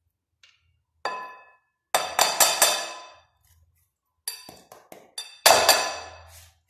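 Fine grater knocked against a dish several times after grating turnip: separate ringing clinks in small clusters, the loudest near the end.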